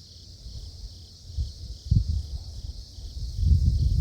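Steady high chirring of insects, with irregular low rumbling thumps that grow louder in the second half.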